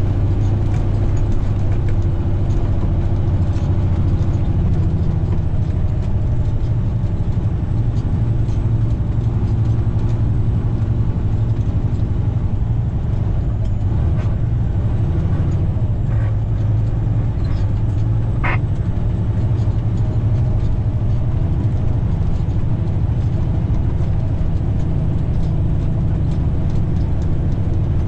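Semi truck's diesel engine running steadily with a deep, even drone. A brief high squeak rises about two-thirds of the way through.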